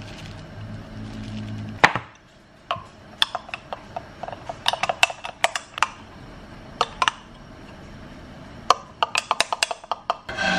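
Metal spoon clinking against a small glass cup as egg yolk and mentaiko are stirred into a sauce: quick runs of light, ringing taps, with one sharp knock about two seconds in.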